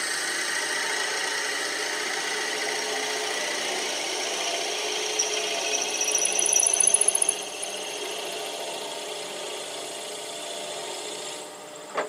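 Wood lathe running while a twist drill bit in a tailstock drill chuck bores into the end of a spinning wooden tool handle: a steady grinding hiss of the bit cutting. About five to seven seconds in a rising whine and louder scraping come up, and the sound is quieter after that.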